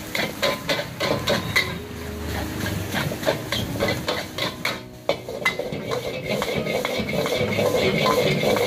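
Metal ladle and wok spatula rapidly clanging and scraping against a steel wok, with food sizzling in the hot oil. About five seconds in the clatter thins out and a steadier sizzle takes over.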